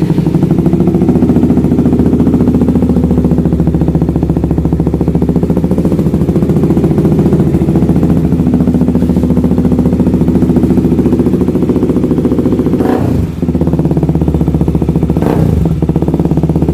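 KTM RC 200's single-cylinder engine running steadily through an SC Project exhaust with no silencer, very loud and open. The note wavers briefly twice near the end.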